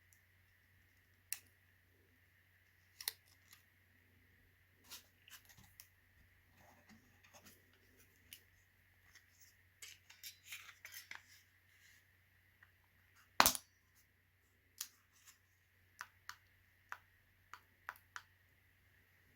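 Small objects being handled: scattered light clicks and taps, thickest about ten seconds in, with one sharper click a little after halfway. A faint steady hum runs underneath.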